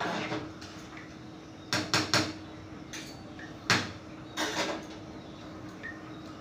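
A metal spoon clinking and knocking against a metal cooking pot on the stove, in several sharp clatters: one near the start, a quick run of three about two seconds in, and more a little later, over a faint steady hum.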